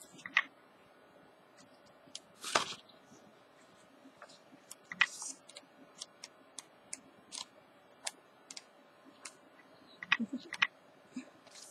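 Pages of a paper colouring book being turned by hand: light paper ticks and rustles, with louder page flips about two and a half and five seconds in and a quick run of ticks near the end.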